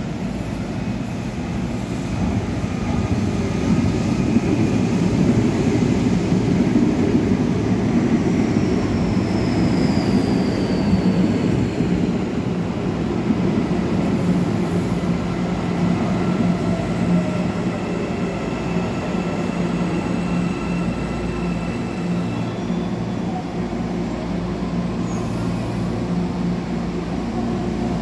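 Red CPTM electric commuter train running in alongside the platform, a loud steady rumble of wheels and motors. Faint squeals fall in pitch as it slows, about a third of the way in.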